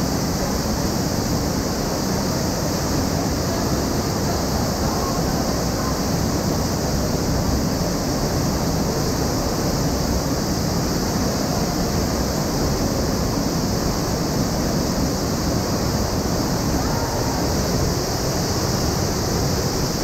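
Underground waterfall inside a cave pouring into a pool: a steady, unbroken rush of falling water.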